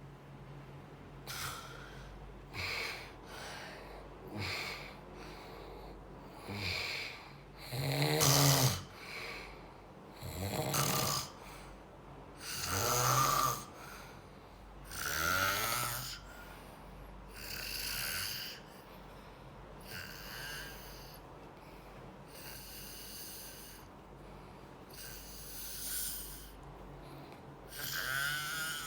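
Steady snoring. One snoring breath comes every two to three seconds, some louder than others, with a low buzzing pitch.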